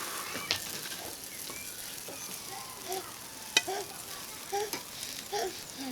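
Chicken pieces and vegetables sizzling on a charcoal barbecue grill, a steady hiss, with a sharp click about three and a half seconds in. From about three seconds in, short low calls repeat roughly once a second.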